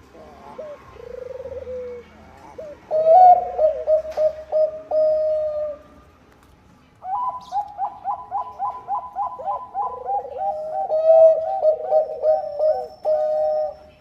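Zebra dove (perkutut bangkok) cooing in two bouts of quick, rhythmic staccato coos and held notes, with a short pause between them.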